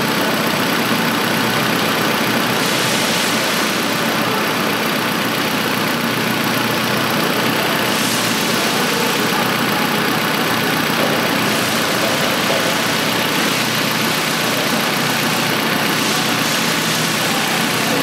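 2006 Nissan Altima's four-cylinder engine idling steadily, now firing on all four cylinders after the ignition coils were replaced.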